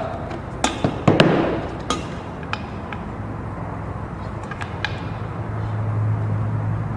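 Clicks and knocks of small corner connectors being pushed into the channels of the aluminium door profiles, with several sharp knocks in the first half; the loudest, about a second in, rings briefly. A low steady hum grows louder in the second half.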